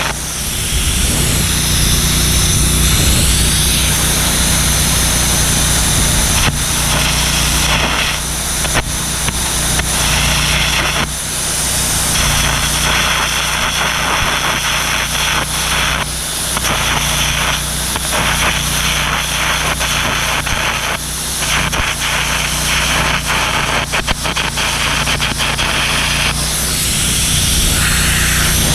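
Air carbon-arc gouging into the steel of a cracked backhoe boom to clear out the crack for welding: a loud crackling, hissing blast of arc and compressed air in runs broken by short stops, over a steady engine drone.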